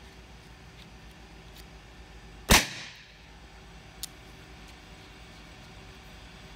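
A single suppressed shot from a .380 pen gun fitted with a GSL Boss 9mm suppressor: one sharp crack about two and a half seconds in, with a short echoing tail. A faint metallic click follows about a second and a half later.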